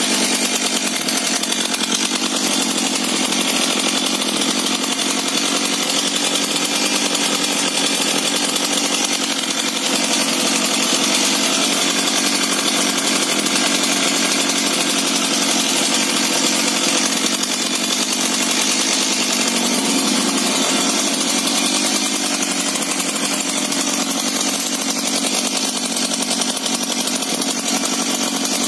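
Brand-new Stihl MS 170 chainsaw's small two-stroke engine running steadily on its first start.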